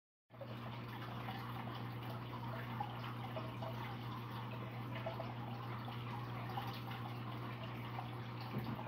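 Water trickling and bubbling in an aquarium, with small irregular drips over a steady low hum.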